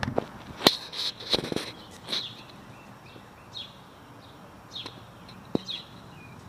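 A bird chirping outdoors, short falling chirps repeated about once a second. A few sharp knocks and footsteps sound near the start, the loudest knock about a second in, and another comes near the end.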